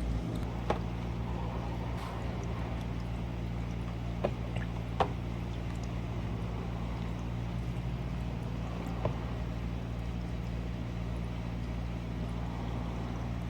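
Steady low mechanical hum, with a few sharp clicks or taps, four in all.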